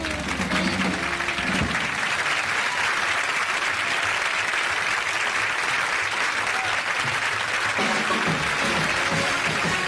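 Studio audience applauding steadily as a rock song ends, with the band's last chord dying away in the first second or two.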